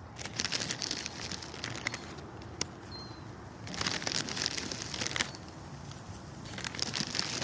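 Bag crinkling and crackling in hand in three bursts as bird feed is handled, with quick clicking crackles between.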